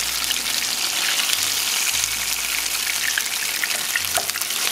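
Hot oil sizzling steadily with fine crackling as a bread roll soaked in guajillo chile sauce shallow-fries in a pan, the wet sauce spitting in the oil.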